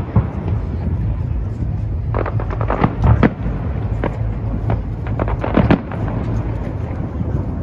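Fireworks display: a series of sharp bangs over a continuous low rumble. The loudest come in clusters about two to three seconds in and again near five and a half seconds.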